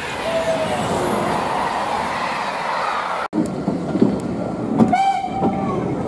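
Trains passing at speed on the main line, with a brief two-tone horn, high then low, in the first second. After a sudden cut come a couple of sharp knocks, and a steam locomotive's whistle begins near the end.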